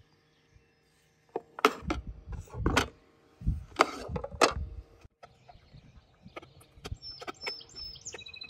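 About a second in, a run of sharp knocks on a plastic cutting board as a zucchini is set down and cut with a kitchen knife, followed by lighter taps. Birds chirp briefly near the end.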